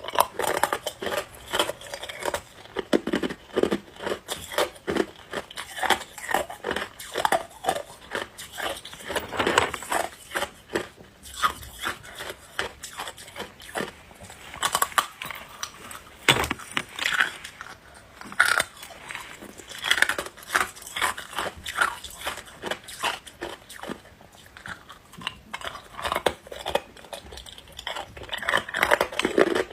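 Ice being bitten and chewed close to the microphone: dense, irregular crunching and cracking, in quick clusters of bites with short pauses between.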